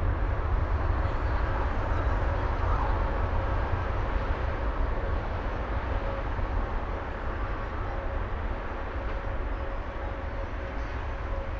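Jet airliner engines with a steady low rumble and a faint whine, slowly fading.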